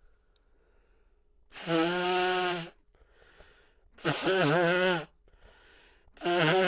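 A person letting out three long voiced sighs, each about a second long, with faint breaths between; the second wavers in pitch. They are sounds of discomfort from the burn of too much Chhinkni nasal snuff.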